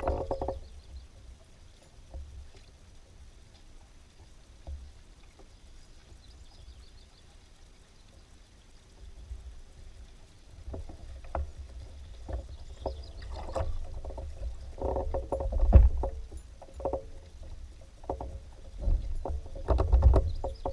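Fishing kayak on the water: knocks and bumps against the hull with a low rumble of water. It is quiet for the first half, then busier, with the loudest knock about three-quarters of the way through.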